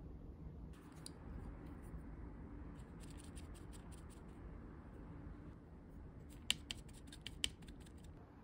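Eyeshadow brush scratching and tapping against a powder eyeshadow palette: three short runs of quick clicks, the sharpest near the end.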